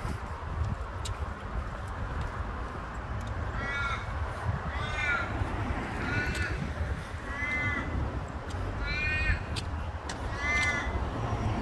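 Australian raven cawing, about six short calls a little over a second apart, starting about four seconds in, over a steady low rumble of road traffic.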